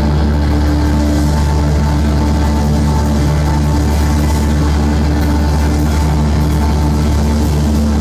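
A live post-hardcore band's amplified guitars and bass holding loud, sustained notes with a heavy low end, the held pitches shifting every second or two, heard from within the crowd.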